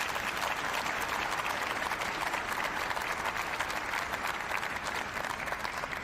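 Audience applauding, a dense, steady clapping that eases off at the end.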